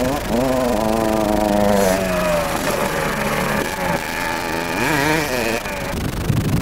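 Kawasaki KX 60 motocross bike's small two-stroke single-cylinder engine revving up and down, its pitch repeatedly dropping and climbing again. About six seconds in it gives way abruptly to wind buffeting the microphone.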